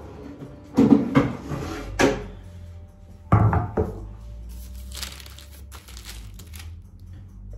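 Wooden cutting board fetched from a low kitchen cupboard and set down on a counter: several loud knocks and thuds of wood about a second in and again about three seconds in, followed by a softer rustle.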